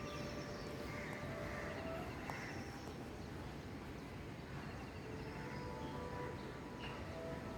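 Birds chirping and calling, with short trills and held whistles, over a steady rushing background.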